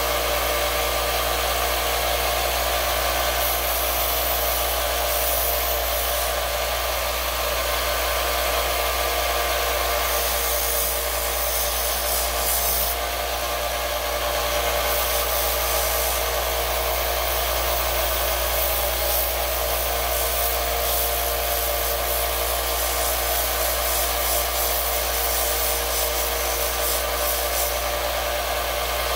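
Small 1-inch bench belt sander running steadily while a wooden handle is held against the moving belt and ground, the abrasive belt rubbing on the wood over the motor's steady hum.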